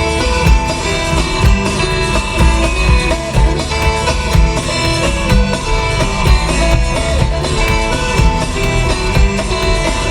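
Music: a song passage with guitar and a steady beat, no singing.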